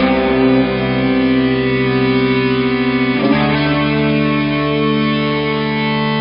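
Background music: a guitar-led track with chords that change about every three seconds.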